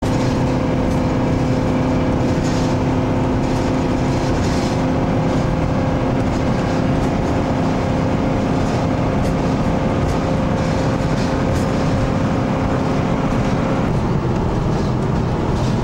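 Steady road and engine noise heard inside the cabin of a moving vehicle on a highway, with a constant hum that drops out about two seconds before the end.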